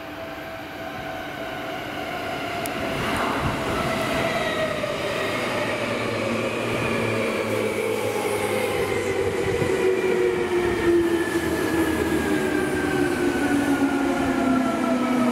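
Seibu Shinjuku Line electric train braking as it arrives, growing louder, its motor whine falling slowly and steadily in pitch as it slows.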